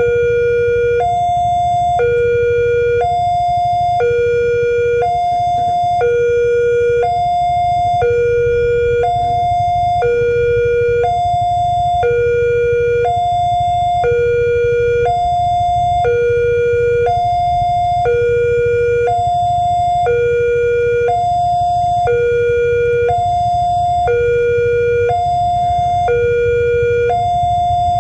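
Railway level-crossing warning alarm sounding its two-tone chime, a lower and a higher tone alternating about once a second without pause. It signals that a train is approaching the crossing.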